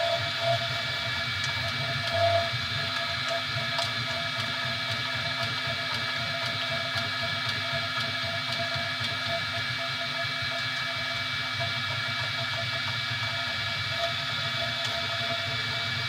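3D printer running, a steady hum and whine with several constant tones and a couple of soft knocks about half a second and two seconds in.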